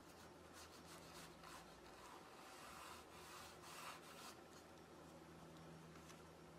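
Faint, short scratchy strokes of a small paintbrush working oil paint onto a canvas, many in quick succession.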